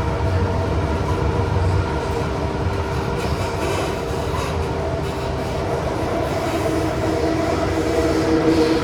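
Kawasaki–CRRC Sifang CT251 metro train running between stations, heard from inside the carriage: steady traction-motor tones over wheel-and-rail rumble, with a lower tone coming in about two-thirds of the way through.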